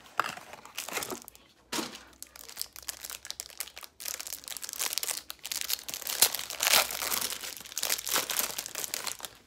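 Plastic wrapping on a hanger pack of baseball cards crinkling and tearing as it is opened by hand, in irregular bursts that grow denser after about four seconds.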